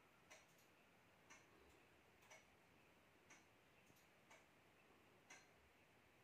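Faint, even ticking of a clock, about one tick a second, in an otherwise near-silent room.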